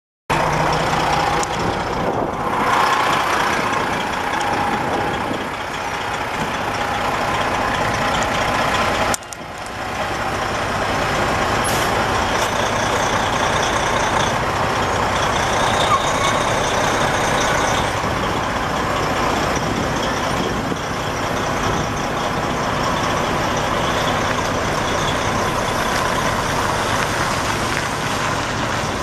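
A 1999 Peterbilt 377 semi truck's Detroit Diesel Series 60 12.7-litre inline-six diesel running steadily, with a brief drop in the sound about nine seconds in.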